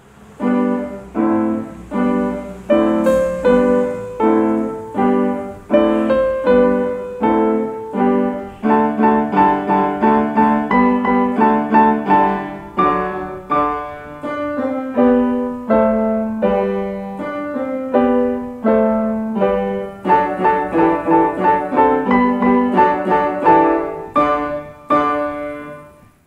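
Piano four-hands duet played on a grand piano and a digital stage piano: a short traditional Russian piece of repeated chords under a melody. It starts from silence and ends with the last chord dying away.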